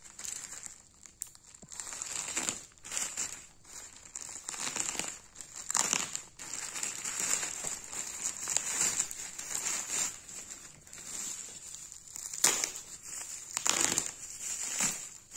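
Thin black plastic mailer bag and bubble wrap crinkling and crackling irregularly as they are pulled open and handled by hand.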